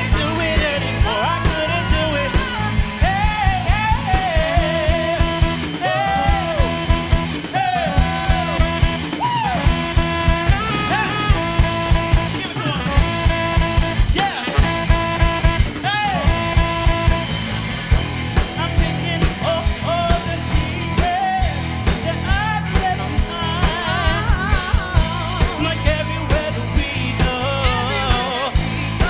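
Live pop-gospel-jazz fusion band playing: drum kit and electric bass keep a steady groove under a lead melody line that bends and slides in pitch.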